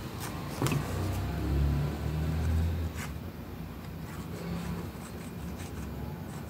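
Handling of cardstock and a liquid-glue bottle's applicator tip scraping over paper as glue is spread, with a few light clicks. A low rumble swells and fades about one to three seconds in.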